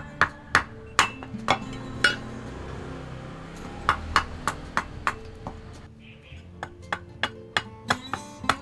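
Hammer blows on a steel knife blade in runs of quick strikes, about three a second, each ringing briefly, with pauses of a second or two between runs.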